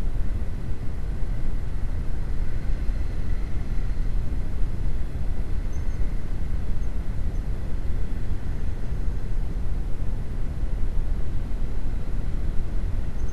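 Steady low rumble of a Honda CB150R's single-cylinder engine and the surrounding motorbike and car traffic at low speed, as picked up by an action camera's microphone.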